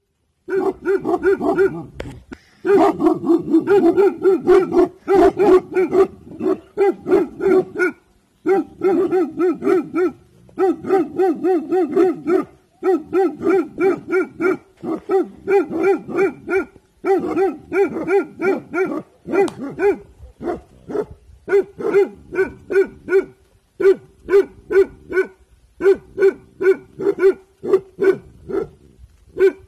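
Bhotia guard dogs barking in quick runs of repeated barks, about three or four a second, broken by short pauses: alert guard barking.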